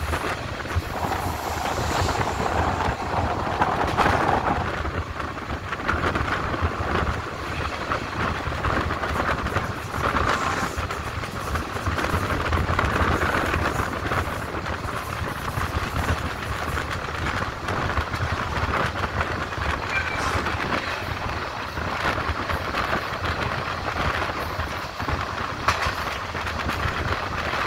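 Passenger train running along the line, heard on board: a steady rumble of wheels on rail with scattered faint clicks.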